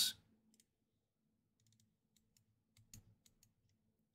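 Faint clicks of a computer mouse and keyboard, a scattered handful at irregular intervals, the loudest about three seconds in.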